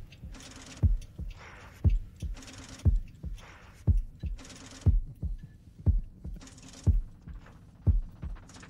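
Slow heartbeat sound effect: deep double thumps, lub-dub, about once a second, steady throughout. Between the beats a hissing noise swells and fades in time with them.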